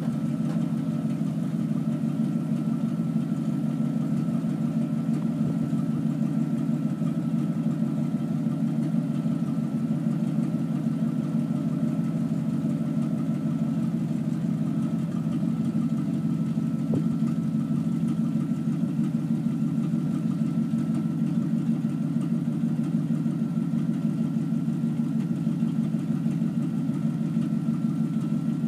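A 1975 Chevrolet grain truck's engine idling steadily while the raised dump box is lowered, with a thin steady whine above the engine note.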